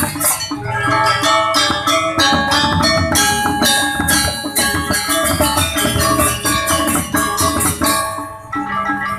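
Balinese gamelan gong ensemble playing energetic dance accompaniment: bronze metallophones and gongs struck in fast, dense strokes over drumming. The playing thins out briefly near the end.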